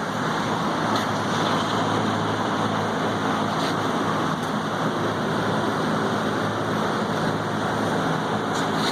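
Steady mechanical noise with a low hum, as from running machinery, holding an even level throughout.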